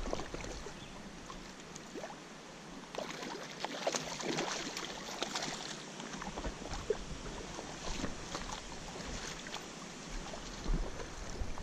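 Shallow stream water splashing and lapping around a hand held in the water, with many small irregular splashes that come thickest in the middle.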